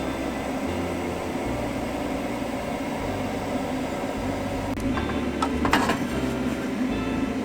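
Steady mechanical hum with a few light clicks and clinks about five to six seconds in.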